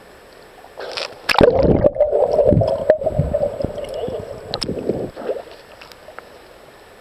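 Water splashing and gurgling as the microphone plunges under the surface, then muffled bubbling underwater for about four seconds before it comes back up.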